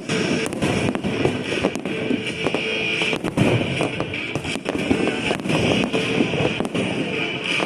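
Aerial fireworks going off in rapid, irregular succession: sharp bangs and crackles, several a second, with no gaps.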